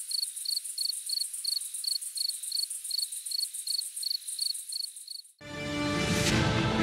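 Crickets chirping in a steady rhythm, about three high chirps a second. The chirping cuts off abruptly about five seconds in and music begins.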